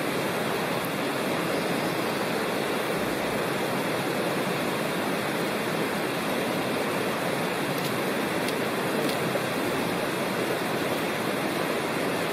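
Mountain creek water rushing over rocks, a steady even rush, with a faint steady high-pitched tone behind it.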